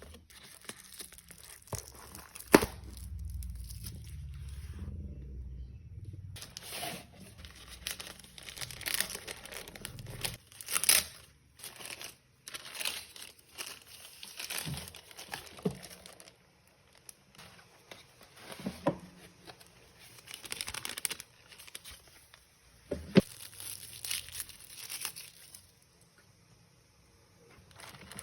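Cake packaging being unwrapped and handled: irregular crinkling, rustling and tearing of wrapping, with a few sharp knocks.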